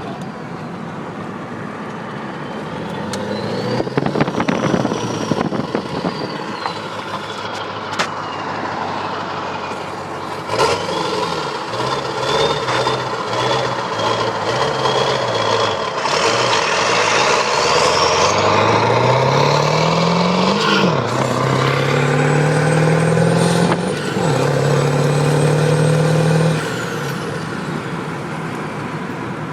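Ford Power Stroke turbo-diesel truck engine pulling hard, with a loud high turbo whistle from its polished turbo housing rising with the revs. The engine pitch climbs and drops suddenly twice, like gear changes, then the engine and whistle fall away near the end.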